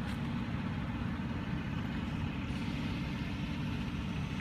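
A heavy truck's diesel engine idling steadily, a low even rumble.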